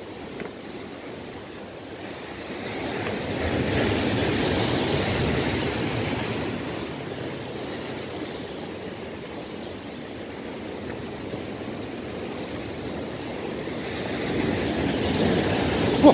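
Sea waves surging and breaking among boulders on a rocky shore, swelling up about three seconds in for a few seconds and again near the end.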